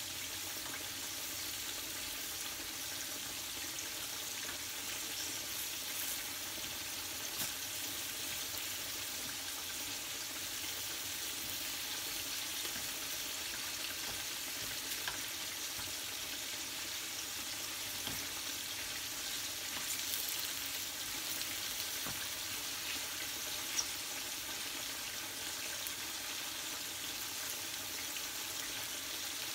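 Steady frying sizzle of sliced onion rings sautéing in oil in a stainless steel frying pan, stirred with tongs, with a few light clicks as the tongs touch the pan.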